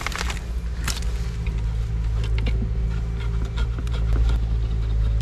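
A steady engine drone, a motor running at an even speed, with scattered small clicks and taps over it.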